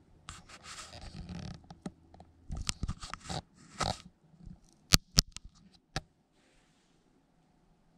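Buttons of a handheld TV remote being pressed while scrubbing through a video: rustling and a run of soft clicks, then three sharp clicks about five to six seconds in.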